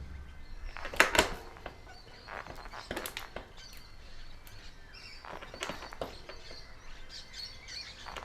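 Fox Float RP23 rear air shock on a mountain bike knocking as the rear suspension is compressed and rebounds: a few sharp knocks about two seconds apart, the first the loudest. The knock comes on rebound, a fault that the owner does not believe comes from the bushing or bearings.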